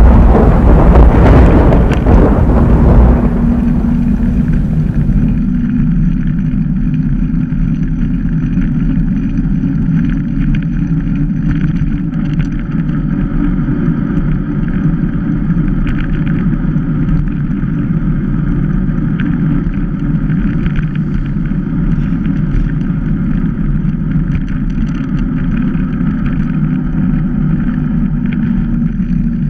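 Steady rolling rumble of a mountain bike ride heard through a bike- or helmet-mounted action camera: tyres on asphalt with a constant hum, and a few faint clicks and rattles. Wind noise buffets the microphone loudly for the first few seconds, then settles.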